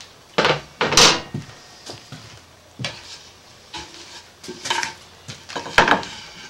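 Metal bench dogs clinking and knocking as they are moved between the holes of a perforated workbench top, with a plywood board knocking as it is handled near the end. There are several separate sharp clacks a second or two apart, the loudest about a second in and just before the end.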